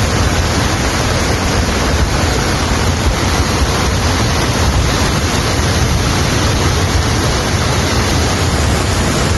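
A river in flash flood, its muddy water rushing in a loud, steady torrent.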